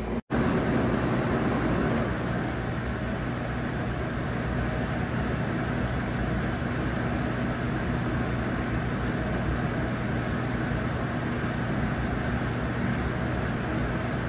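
Steady machine room noise: a constant low hum under an even rushing hiss, with no speech. The sound cuts out for an instant near the start and then runs on unchanged.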